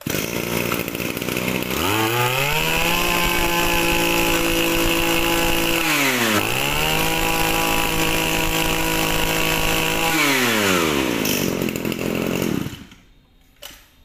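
Robin 21cc brush-cutter engine running: idling, then revved up to full throttle and held, dipping once and revving up again, then dropping back to idle and shutting off near the end.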